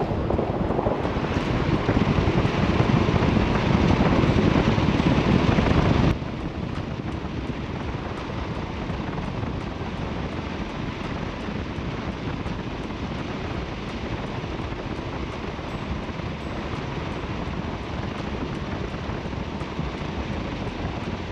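Wind rushing over the microphone with road noise while riding a Segway GT1 electric scooter at speed. The rush is louder at first, then drops abruptly about six seconds in to a quieter, steady level.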